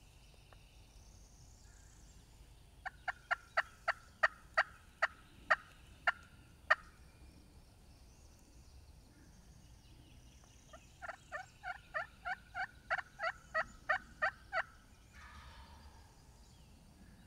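Turkey yelping: two runs of sharp, loud, evenly spaced notes, the second run longer and faster than the first.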